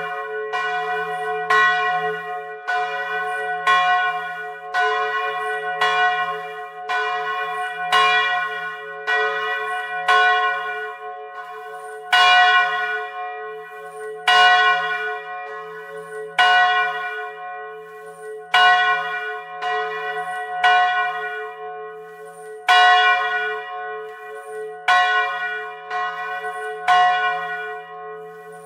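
Bronze church bell swinging full circle on its original wooden yoke, its original clapper striking about once a second. Each stroke rings on into the next.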